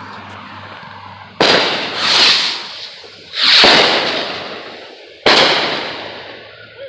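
Aerial fireworks bursting overhead: four loud reports in quick succession, two sudden bangs and two swelling rushes, each trailing off slowly.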